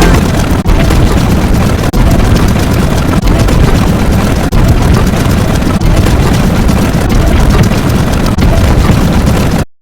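Very loud, dense noise sound effect with a brief dip about every 1.3 seconds, cutting off abruptly just before the end.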